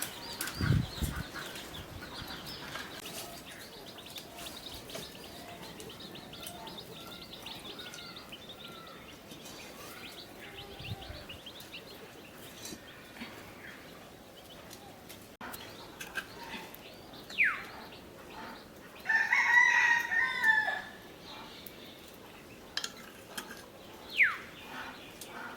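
A rooster crows once, about two-thirds of the way in, over a quiet background; short falling bird chirps come before and after it.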